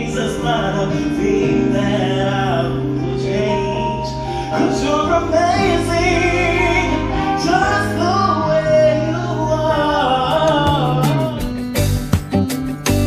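Music: a song with a singing voice over instruments and a held bass line.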